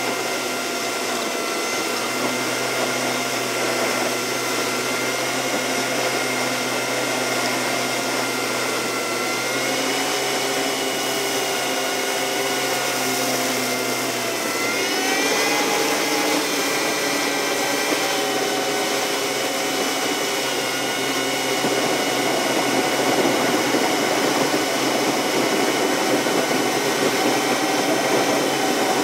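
Car's engine and road noise picked up inside the cabin by a dashboard camera, sped up with the time-lapse footage into a steady high whine; about halfway through its pitch rises and then holds at the higher note.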